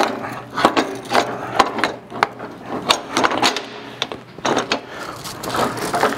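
Corn head gathering chain with brush blocks attached, rattling and clicking irregularly as it is worked by hand around the row unit's sprockets.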